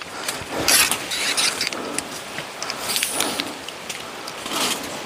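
Irregular rustling and crunching footsteps on a rough trail, the loudest about a second in, around three seconds in and near the end.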